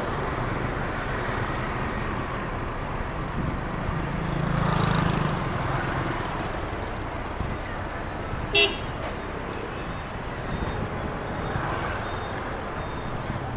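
Steady city street traffic, with a vehicle passing close about four to five seconds in and a short horn beep about two-thirds of the way through.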